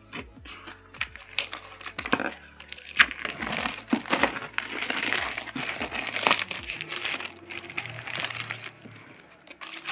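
A cardboard power-supply box being opened and its packaging handled: rustling and crinkling with many small clicks and taps, busiest in the middle.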